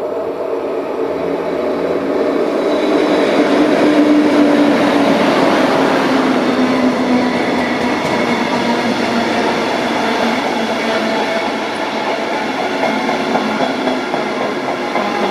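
DB class 143 electric locomotive hauling double-deck coaches past: a loud rushing run-by with a pitched hum that falls in pitch as the locomotive goes by, loudest about four seconds in, then the steady rumble of the coaches' wheels on the rails.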